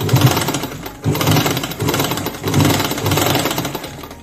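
Sagar sewing machine running fast, its needle mechanism clattering as it stitches a seam through fabric, in a few surges that fade out near the end.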